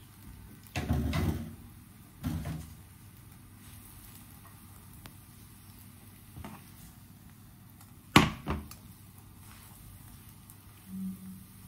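A few knocks and thumps from handling kitchen things, a wooden spatula and pan among them: two dull thumps in the first three seconds and a sharp knock about eight seconds in.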